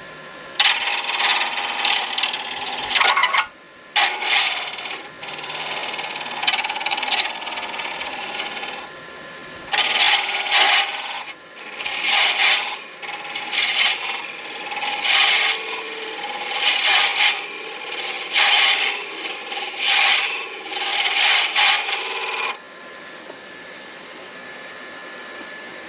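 Turning tool cutting a spinning acrylic pen blank on a midi lathe: a scraping noise in long passes, then about a dozen short strokes in the second half. Near the end only the lathe is heard running.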